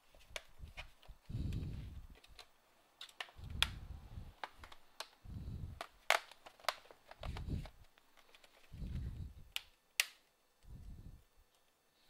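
Handling of an HP laptop's plastic case: sharp clicks as the bottom cover is pressed and the machine is picked up, among several dull low thuds and scrapes as it is moved and set down on the bench.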